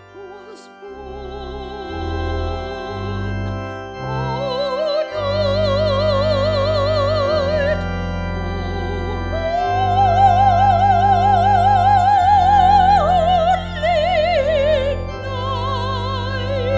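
A soprano singing with strong vibrato over sustained chords on an electronic organ, climbing to a long high held note about halfway through, then falling away to a final held note near the end.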